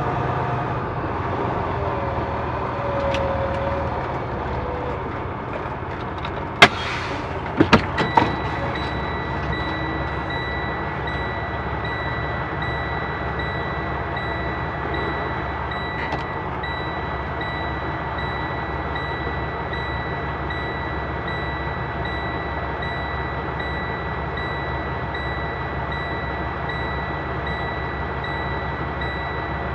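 Semi truck's diesel engine running at a low idle. About seven seconds in there are a short hiss and a few sharp clicks, and then a reverse alarm starts beeping steadily.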